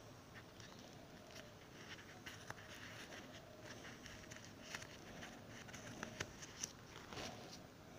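Faint crinkling and small clicks of plastic page sleeves being handled, growing busier in the second half.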